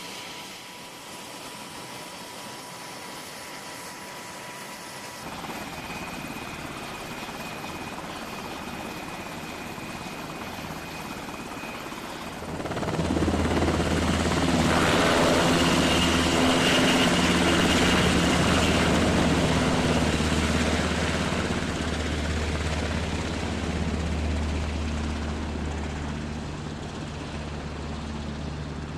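HH-60 Pave Hawk helicopters with rotors turning and a steady high turbine whine. About 13 seconds in, the sound swells sharply into heavy rotor and engine noise as two Pave Hawks lift off, then eases off as they fly away.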